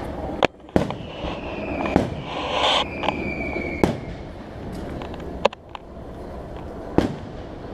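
Fireworks going off: six sharp bangs about a second or two apart. A thin whistle, falling slightly in pitch, runs through the middle along with a short crackle.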